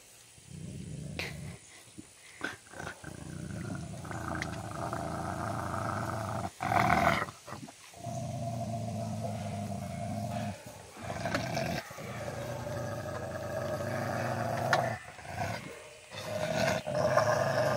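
Dogs growling over food in long, low rumbling stretches, broken by short pauses, with louder, sharper snarls about seven seconds in and again near the end.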